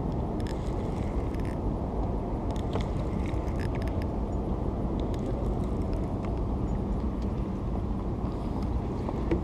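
A steady low rumble, with faint light ticking from a spinning reel being wound in as a small fish is retrieved.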